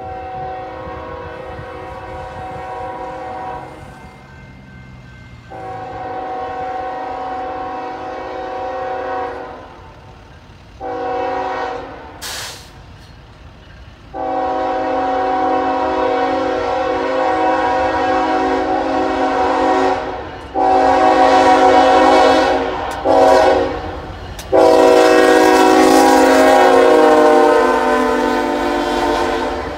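Air horn of a Union Pacific ES44AC locomotive leading a freight train, sounding a chord in a string of long and short blasts as the train approaches and getting louder; the last long blast is the loudest.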